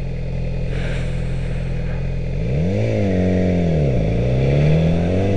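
Yamaha R6's inline-four engine idling steadily, then revving up as the bike pulls away from a stop; the revs dip about four seconds in and climb again.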